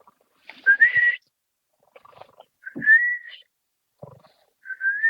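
Snoring snorts alternating with a short rising whistle, the pair repeating three times about two seconds apart.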